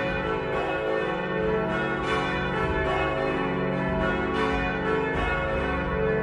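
Church bells pealing: several bells struck over and over at an uneven pace, their long tones ringing into one another.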